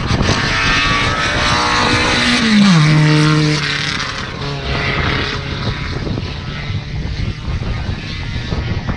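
A race car passes at speed under power. Its engine note drops sharply in pitch as it goes by about two and a half seconds in, then fades away up the road.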